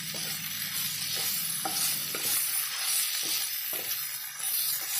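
Idli pieces and vegetables sizzling in oil in a nonstick pan as they are stirred and tossed with a wooden spatula, with irregular scrapes and taps of the spatula against the pan.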